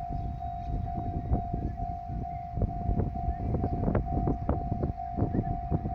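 Japanese railway level-crossing alarm ringing: one repeating electronic tone at an even rate, sounding as a train approaches. Wind rumbles on the microphone underneath.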